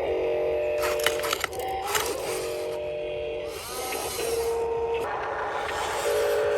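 Small electric motors of RC construction machines whining at a steady pitch that steps up and down as the controls change, with a few sharp clicks and knocks early on.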